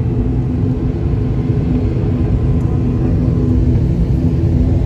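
The ATR 72-500's twin Pratt & Whitney PW127 turboprop engines and propellers running at taxi power, heard from inside the cabin as a steady low drone with a humming propeller tone.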